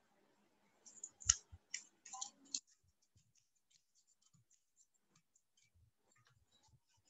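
A quick cluster of faint sharp clicks in the first few seconds, then only scattered, barely audible ticks.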